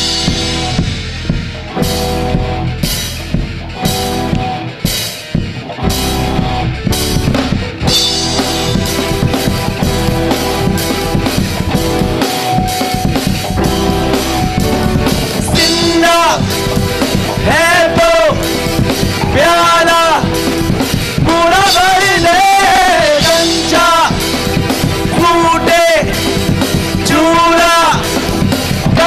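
Live rock band playing on stage: drum kit with cymbal hits about every two-thirds of a second over held chords, then the full band with electric guitars and keyboards coming in about eight seconds in. A singer's voice joins about halfway through.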